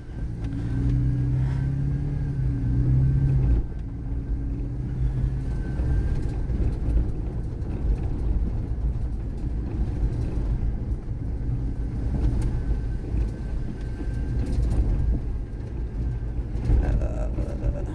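Vehicle driving on a rough dirt road, heard from inside: engine and tyre rumble. The engine holds a steady note for the first few seconds, then settles into an even rumble.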